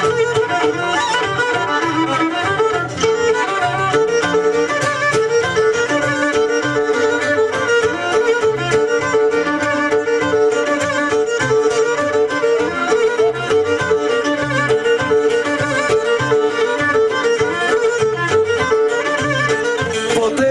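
Live Cretan band playing an instrumental passage of a pentozali dance tune. The Cretan lyra bows the ornamented melody over a steady rhythmic accompaniment from laouto and guitar.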